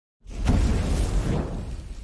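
Logo-reveal sound effect: a sudden whooshing burst with a deep rumble, starting a moment in and fading after about a second and a half.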